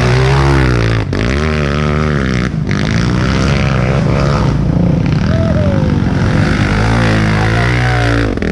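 Dirt bike engines running and revving, the pitch rising and falling as the throttle is worked. The sound breaks off abruptly about a second in and again at about two and a half seconds.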